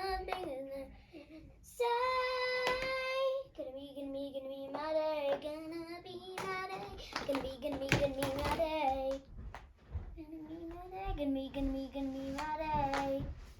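A young girl singing a melody on her own, without clear words, holding long wavering notes, with scattered sharp clicks and taps from handled toys.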